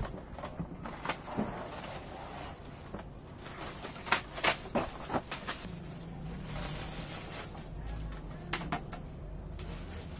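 Unpacking a cardboard box and pulling out aluminium telescope tripod legs: scattered light clicks, knocks and rubbing of cardboard and metal. The loudest knocks come about four to five seconds in, and more come near the end.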